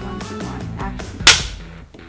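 A film clapperboard snaps shut once, a single sharp clack about a second in, over background music.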